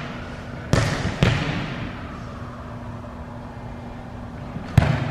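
A volleyball bounced twice on a wooden gym floor, the strikes about half a second apart and echoing in the hall, then a single sharp smack of the ball being hit near the end.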